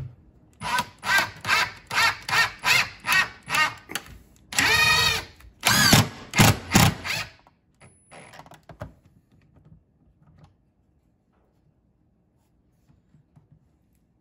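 Cordless drill driving a screw through a fishfinder mount's slotted base, the motor revving up and down in quick trigger pulses, about three a second. Then comes one longer run and a few last pulses, stopping about seven seconds in. After that there are only faint handling ticks.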